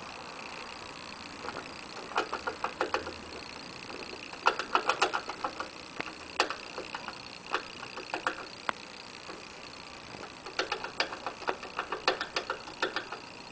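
Hamster drinking from a cage water bottle, licking the metal sipper tube: rapid ticking clicks, about seven a second, in several bursts with short pauses between.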